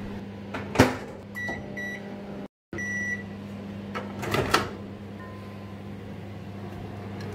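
Microwave oven humming steadily, with a sharp clunk about a second in, three short high beeps, and a few light knocks near the middle.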